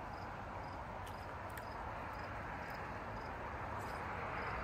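Steady outdoor background hiss and low rumble, with a faint insect chirping evenly about twice a second and a few faint clicks.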